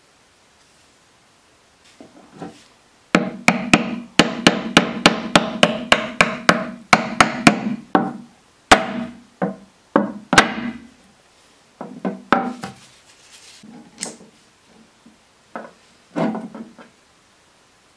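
Small hammer tapping a walnut handle scale down onto the brass pins of a knife tang: a quick even run of about three taps a second, then a few separate harder blows and softer knocks near the end.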